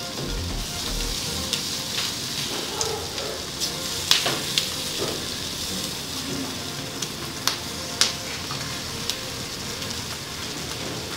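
BBQ-sauce-glazed pork ribs sizzling on a gas grill, a steady hiss broken by sharp pops every second or two.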